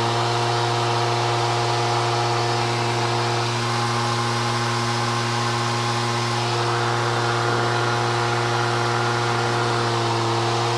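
SeaRey amphibian's pusher engine droning steadily in flight, heard inside the open cockpit, its pitch dipping slightly about three and a half seconds in.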